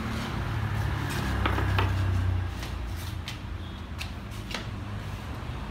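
Sharp metal clicks and clinks, about seven of them, as a wrench and the fluid-line fittings are worked on a hydraulic power steering rack clamped in a vise. Under them runs a steady low vehicle rumble that swells louder from about one to two and a half seconds in.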